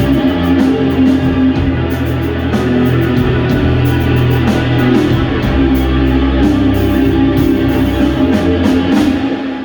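Live band playing: electric guitar over bass and drums with cymbal hits, the sound falling away just before the end.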